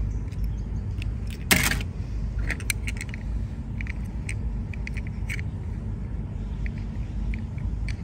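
Small die-cast toy car handled in the fingers, with scattered light clicks and a louder rustle about a second and a half in, over a steady low rumble.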